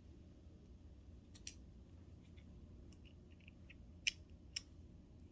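Small flathead screwdriver clicking against a screw and metal parts while driving the hooked screw into the sewing machine's clutch mechanism. There are a few sharp clicks, one about a second and a half in and two more about four seconds in, with fainter ticks between.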